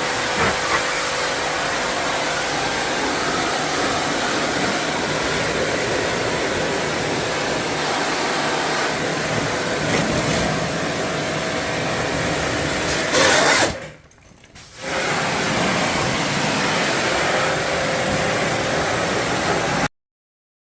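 Steady whirring motor and air noise from a cleaning machine used on an air conditioner. It swells briefly, cuts out for about a second, starts again, and stops abruptly near the end.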